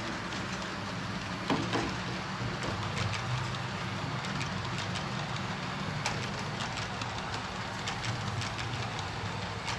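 Model train rolling along the track: a steady hum and rumble, with light irregular clicks of the wheels passing over rail joints.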